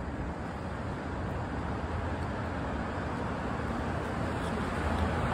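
Steady rushing rumble of riding a bicycle over a concrete garage floor, tyre noise mixed with wind on the microphone, growing gradually louder.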